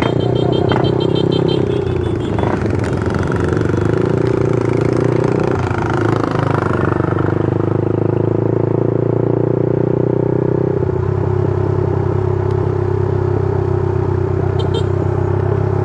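Motorcycle engine running steadily while riding, heard from on the bike, its pitch shifting about a third of the way in and again about two-thirds through.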